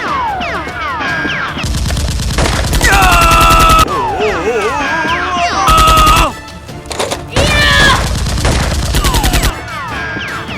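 Several bursts of rapid automatic gunfire sound effects, a second or two each, over action background music.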